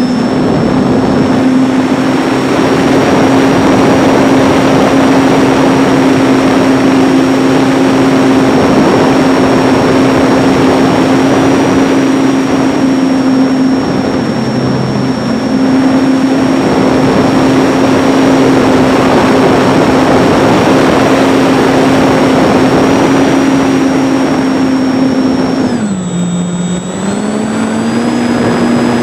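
Electric motor and propeller of a ParkZone T-28 RC warbird running at high throttle in flight, a steady whine heard from a camera on the wing under heavy wind rush. The pitch dips briefly about halfway through, then drops near the end and climbs back up.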